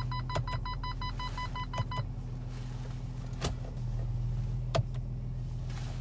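VW Touareg 7L idling, with sharp single clicks from the retrofitted steering-wheel paddle shifters as they are pulled to change gear, about one every second or so. A fast run of short electronic beeps stops about two seconds in.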